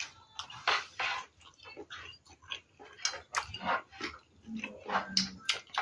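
Close-up wet chewing and lip-smacking while eating rice by hand, in short uneven smacks, with fingers scraping the plate.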